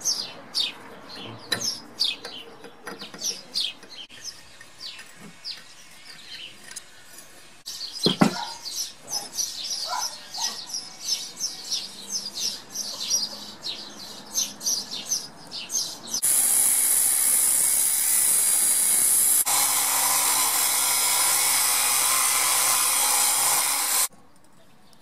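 Birds chirping over and over, with a knock about eight seconds in. Then, from about two-thirds of the way through, an angle grinder's cut-off disc cuts through a steel pipe with a loud, steady grinding noise for about eight seconds, which cuts off suddenly.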